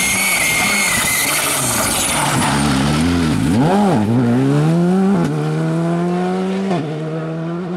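Škoda Fabia rally car at speed: a steady high whine at first, then the engine note dips and rises as it slows through the corner. The engine then revs up hard as the car pulls away, with two upshifts about five and seven seconds in, and the sound fades as it leaves.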